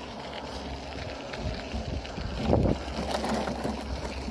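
Riding a bicycle on a gravel path: steady wind rumble on the handlebar-mounted phone's microphone, with small rattles and clicks from the bike. A louder rush of noise comes about two and a half seconds in.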